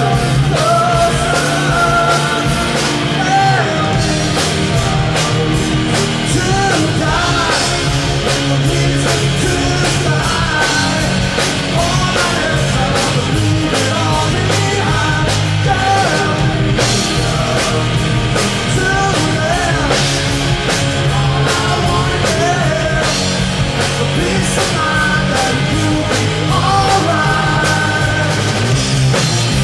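Live rock band playing loud and without a break: a male lead singer belting into a handheld microphone over electric bass, drum kit and electric guitar, with a second voice joining on backing vocals.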